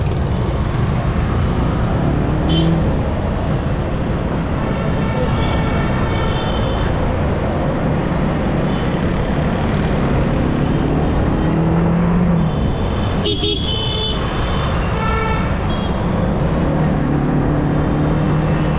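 Riding through busy city traffic on a motorcycle: steady wind and engine noise, with other vehicles' horns honking several times.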